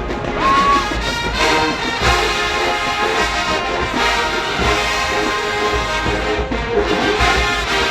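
A large college marching band playing, full brass over drums, with a steady loud sound throughout.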